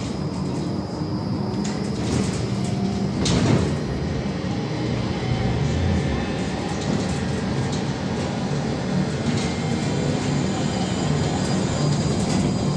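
Cabin noise of a VMZ-5298.01 trolleybus on the move: a steady ride rumble with rattling, and one sharp clunk about three seconds in.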